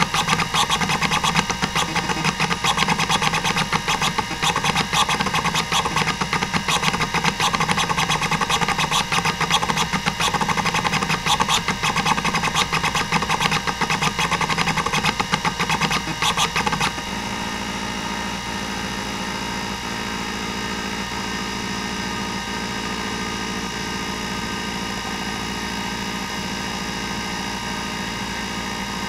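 Hitachi DK505-2 26MB stepper-motor hard drive seeking rapidly: a dense chatter of head steps over the steady whir of the spindle. A little over halfway through, the chatter stops abruptly and the drive goes quieter and steadier, with faint regular ticks, as the random-seek test gives way to track-to-track seeks.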